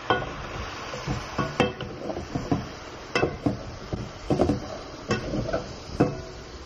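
A spoon stirring chunks of browned oxtail in a pot, scraping and knocking against the pot's side with several sharp clinks, some of which ring briefly.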